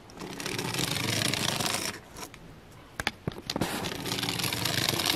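The small solar-powered motor and plastic gearbox of a kit-built solar toy car whirring as it runs on a wooden table, stopping about two seconds in, with a few clicks, then running again.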